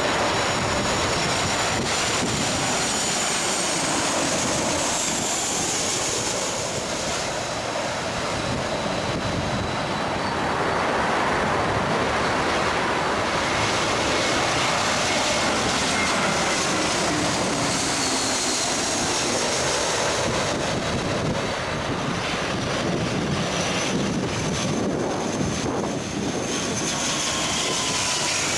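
Jet airliner engines on landing approach, a continuous rushing noise with high whines that slide down in pitch as the aircraft pass.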